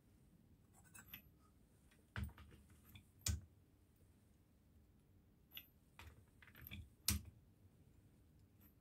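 Sharp metallic clicks and knocks of a torque wrench and socket working the clutch centre nut down, a few strokes spread seconds apart. The loudest come about two, three and seven seconds in.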